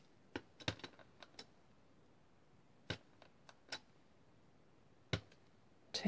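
Light tapping and clicking of a cork-mounted rubber stamp being dabbed on an ink pad and handled on a table: a quick cluster of taps in the first second and a half, a few more near three to four seconds in, and one last tap about five seconds in.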